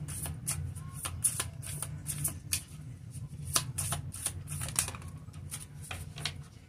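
A deck of tarot cards being shuffled by hand: a quick, irregular patter of card clicks and flicks that stops near the end.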